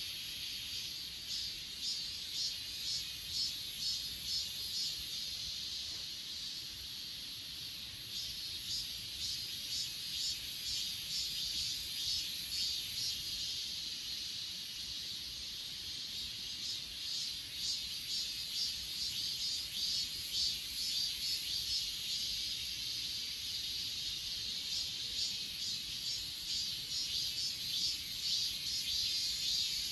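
Chorus of grass insects such as crickets, a steady high chirping with fast pulsing trills that come and go in spells of a few seconds.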